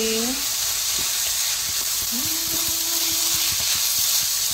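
Chicken fried rice sizzling steadily in a hot pan as it is stir-fried with dark soy sauce just added, with light clicks of stirring.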